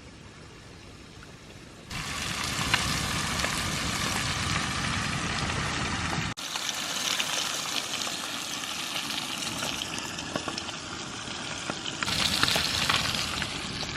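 Battered northern pike fillets frying in a pan of hot grease, a dense sizzle with crackles. It is fainter for about the first two seconds, then the loud frying comes in suddenly.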